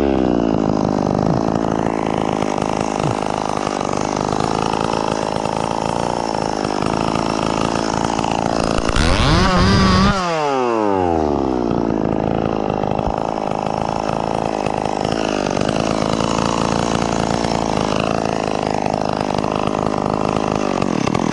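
Small two-stroke chainsaw running at low revs, revved up briefly about nine seconds in as it cuts through a branch, then falling back to idle and shut off abruptly at the end.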